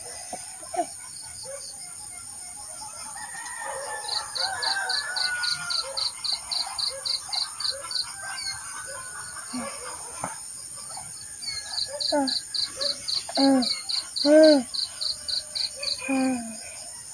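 Chickens calling, with a few louder clucks near the end, over insects chirping in a steady rhythm of about four pulses a second.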